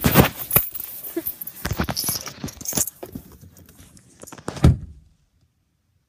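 Handling noise: dense clicking and rustling as the camera and clothing are moved about, fading after about three seconds, then a single thump. The sound then cuts off completely.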